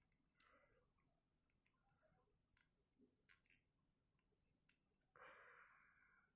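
Near silence with faint clicks of small plastic action-figure parts being snapped and fitted together by hand; about five seconds in, a short soft hiss lasts about a second.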